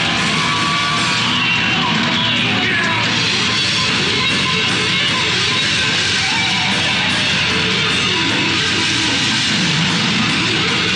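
Heavy metal band playing live: distorted electric guitars over drums and bass, loud and continuous.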